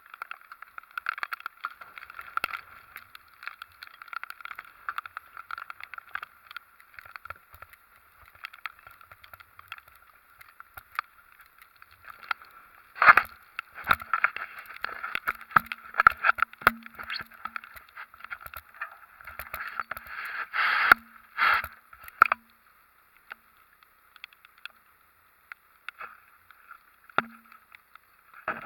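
Hurricane wind and rain buffeting a camera mounted on the outside of a pickup truck: continuous crackling with many irregular knocks, busiest and loudest in the middle.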